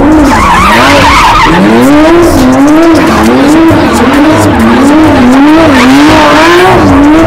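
Lamborghini Aventador SVJ's V12 revving up and down over and over, about once a second, as it spins donuts, with the tyres squealing and skidding.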